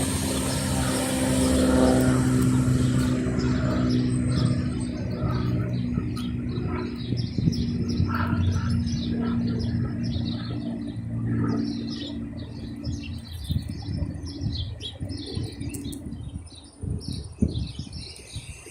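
Small birds chirping rapidly over a steady vehicle engine hum. The engine fades away about two-thirds of the way through, leaving the birdsong.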